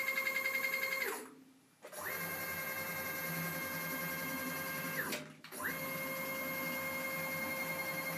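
Stepper motor driving a CNC-converted G0704 mill's axis at about 64 inches a minute, a steady high-pitched stepper whine. It winds down to a stop about a second in and ramps back up to speed after a short quiet. It runs about three seconds, stops briefly, then starts again near the end.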